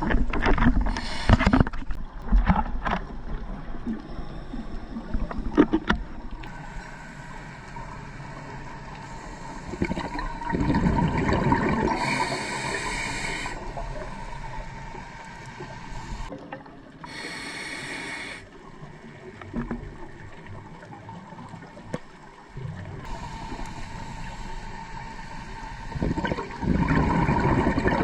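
Scuba diver breathing through a regulator underwater: slow breaths several seconds apart, each a short hiss on the inhale and a low bubbling rumble of exhaled air. Some rattling knocks and bubble noise come in the first few seconds.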